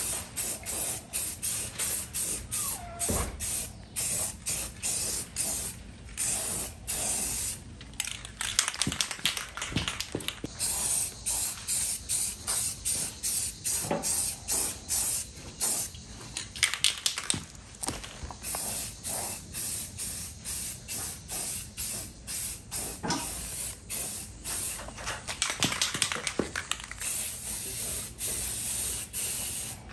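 Aerosol spray can of Rust-Oleum Rust Reformer primer hissing in short repeated bursts, two or three a second, with a few longer sprays in between.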